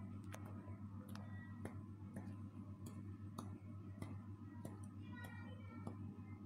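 Facial comedone vacuum machine running with a steady low hum, while irregular light clicks come about twice a second.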